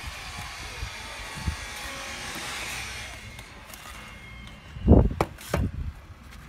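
Construction-site ambience: a steady buzz of machinery, then two heavy low thumps about five seconds in, the first the loudest.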